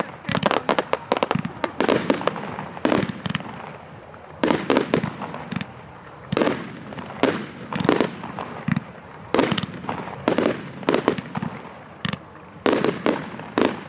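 Fireworks going off in a display: a rapid series of sharp bangs and cracks in clusters, each echoing briefly, with crackling between them.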